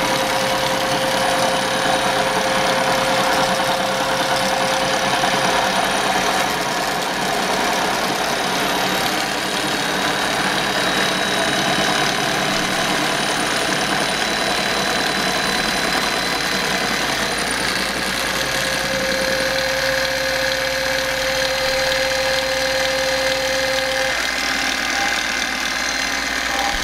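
Homemade CNC milling machine running a programmed arc cut: the spindle motor running and the end mill cutting mild steel on a light pass of about 0.4 mm. It is a steady machining noise, with a tone that fades out about five seconds in and returns from about 18 to 24 seconds.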